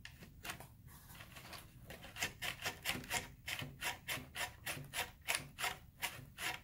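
Elevator push rod of a Vertigo F5J glider being worked back and forth inside the fuselage boom, rubbing as it slides and moving the elevator. The rubbing starts about two seconds in, at about three strokes a second.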